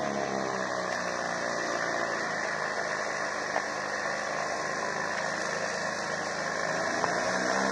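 Engine of a flying boat running steadily, its pitch sinking slightly near the start and rising again near the end as the engine speed or distance changes.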